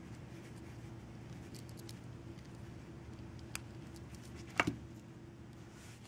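Faint handling sounds from a Victorinox Swiss Army knife: a few light clicks, then one sharper click-knock about four and a half seconds in, over a steady low hum.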